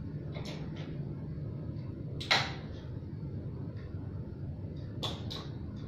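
Short clicks and knocks of parts being handled at a mountain bike's stem and steerer, with one sharp click about two seconds in and a couple of lighter ones near the end, over a steady low hum.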